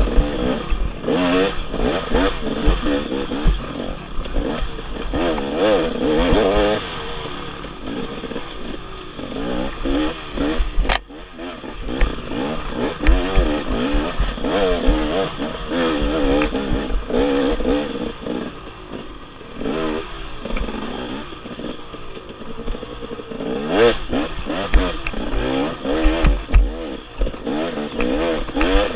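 Dirt bike engine revving up and down over and over, with the clatter and scrape of the bike over rough ground. A single sharp knock about eleven seconds in, and a steady low rumble of wind on the helmet microphone.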